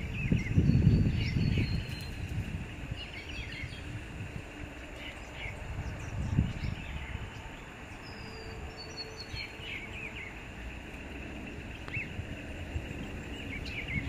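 Several wild birds calling in the trees, with short chirps and whistled notes scattered throughout, over a steady high hiss. A low rumble is heard, loudest in the first two seconds and again briefly around six seconds in.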